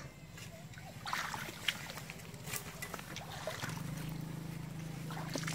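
Splashing and rustling in shallow water and wet weeds as an eel is pulled out by hand, with scattered short clicks and splashes in the first half. A steady low drone runs underneath and grows stronger a little over halfway through.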